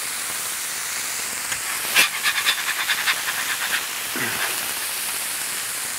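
Smash burgers sizzling on a Blackstone flat-top griddle, a steady hiss. About two seconds in, a metal scraper clicks against the griddle and scrapes across it in a quick run of short strokes as a patty is turned over.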